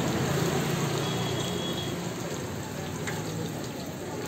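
Gulgule (sweet wheat-flour dough balls) deep-frying in a large kadhai of hot oil, with a steady hiss of oil sizzling.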